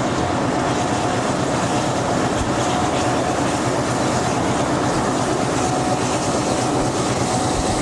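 Diesel locomotive running at speed, heard from beside its cab: a steady, loud mix of engine noise and wheels on the rails.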